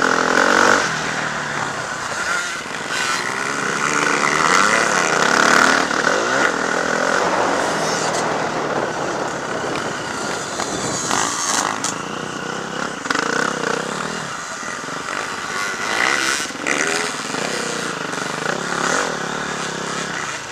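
Several motocross bikes running at once, their engines revving up and down as they ride the track.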